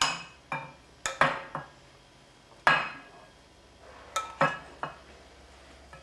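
A spoon clinking and knocking against bowls as banana slush is spooned out. There are about nine sharp clinks, irregularly spaced and bunched in small groups, each ringing briefly.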